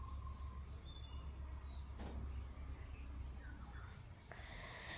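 Crickets chirping steadily over a low hum, with one sharp clink of a metal spoon against an aluminium pot about two seconds in.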